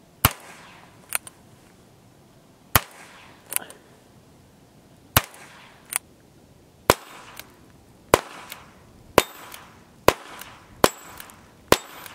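Single shots from a .22 LR single-action revolver (Ruger Single-Six), about nine sharp cracks spaced roughly one to two and a half seconds apart, with fainter sharp sounds after the first few.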